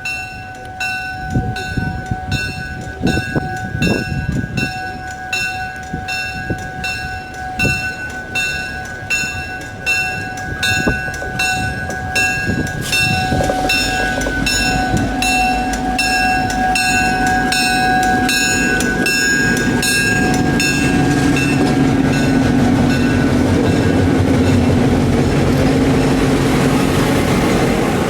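A train drawing near and passing. A bell-like ringing struck at a quick, even beat goes on for about the first two-thirds, and from about halfway a low rumble of the train swells and grows steadily louder.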